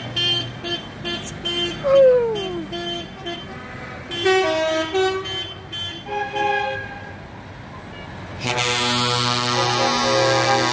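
Vehicle horns tooting in short blasts as a convoy of vehicles passes. From about eight and a half seconds in, a loud multi-tone horn holds on steadily, in keeping with a lorry's air horn.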